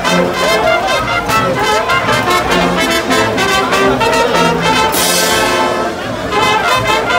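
Brass band of trumpets and sousaphones playing a tune over a steady beat.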